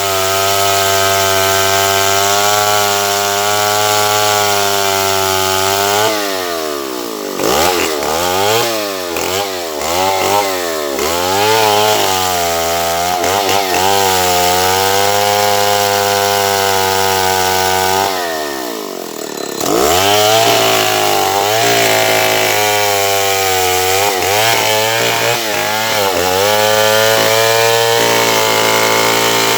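Stihl 070 two-stroke chainsaw cutting wood at high revs. Its pitch holds steady for a few seconds, then rises and falls again and again as the load changes. About two-thirds of the way through, the revs drop sharply and the sound dips before picking back up.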